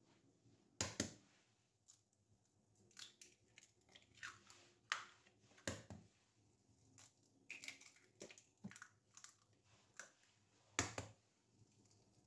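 Raw eggs being cracked into a plastic mixing bowl: quiet shell crackles and taps, with a few sharp knocks.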